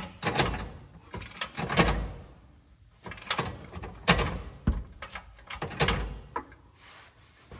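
A wheeled transmission jack carrying a transmission being pushed forward in a series of short shoves, its casters rolling and metal clunking, about six or seven times.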